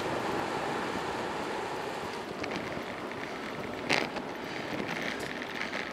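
Wind rushing over the microphone of a bicycle-mounted camera and tyres rolling on an asphalt path while riding downhill. One short click or knock about four seconds in.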